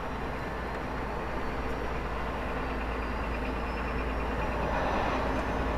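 Scania 480 hp diesel truck engine and road noise heard from inside the cab while driving, a steady drone that grows slightly louder, with a faint rising whistle over it.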